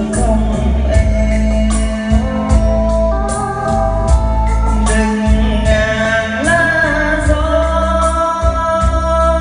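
Karaoke backing music played loud through a stage sound system: an electronic-organ-style keyboard melody over heavy bass and a regular drum beat, with a man singing into a microphone.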